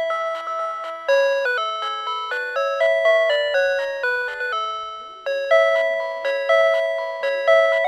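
PATLITE electronic signal-clear annunciator on a Tobu Railway platform playing its looping chime melody. Each note is struck and fades, about one a second. It sounds to tell a one-man train's crew that the departure signal has cleared.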